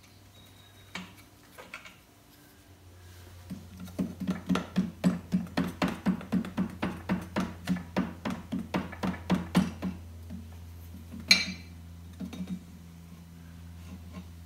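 A mallet hammering on the steel fork yoke of a 1961 Norton Manxman, driving out the front fork. A few light knocks come first, then a run of even blows at about four a second for some six seconds, then one sharper blow and a few light taps.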